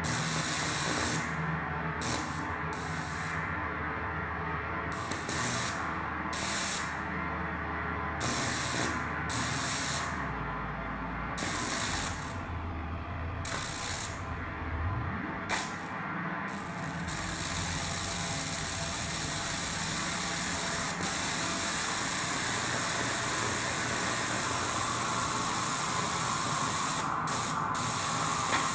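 Harsh noise music built from electronic noise and effects: low droning tones run beneath bright hissing static that cuts in and out in irregular bursts. From about two-thirds of the way in the hiss becomes a continuous wall.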